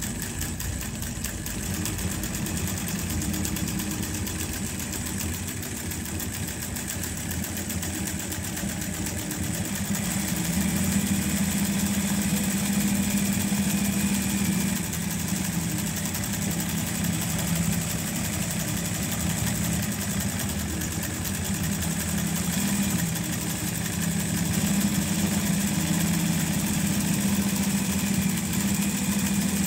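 Juki LZ-586 industrial zigzag lockstitch sewing machine running steadily, stitching a zigzag seam through thick fabric over 1 cm deep. It runs with a rapid, even needle rhythm and gets louder for a stretch about a third of the way in and again in the last few seconds.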